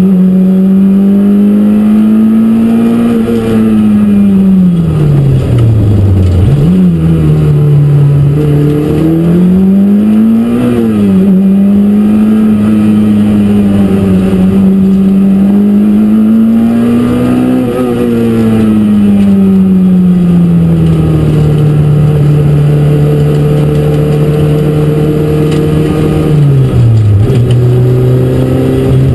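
Peugeot 205 Rallye Group A's four-cylinder engine heard from inside the stripped cabin, driven hard at racing speed: the engine note climbs and falls with the gear changes, dipping low and sharply recovering about six seconds in and again near the end.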